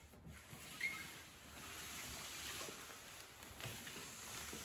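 Faint scraping and rustling of an empty cardboard box being pushed along a tiled floor, with a few light knocks.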